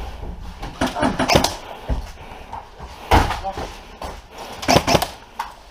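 Several sharp knocks and clatters at uneven intervals, the strongest about three seconds in and a close pair near the end.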